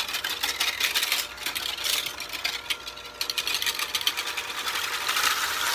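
Electric hand mixer running steadily, its beaters whipping evaporated milk in a bowl until it froths up to double its volume.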